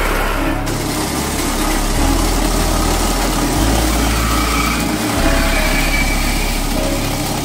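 Coconut grating machine running, its motor driving the grater drum with a steady drone that shifts a little in strength as coconut halves are pressed against the grater.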